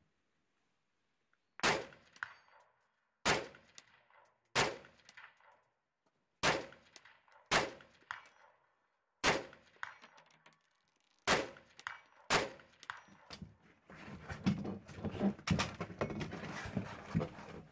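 Semi-automatic AR-15-type rifle with a three-chamber muzzle compensator firing eight aimed single shots, one to two seconds apart, each with a short echo. After the last shot comes a busier run of small knocks and rattles.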